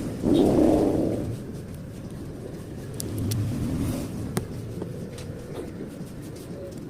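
A motor vehicle passing, its engine noise swelling up sharply just after the start and fading within about a second, with a weaker swell a few seconds later and a few light clicks.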